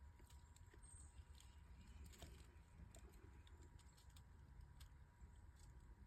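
Near silence: faint room tone with a low hum, a thin steady whine and a few scattered light ticks.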